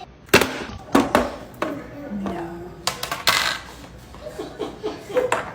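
Several sharp clicks and clatters of hard objects being handled and set down, spaced irregularly, with the loudest knocks about a third of a second in, around one second in and about three seconds in.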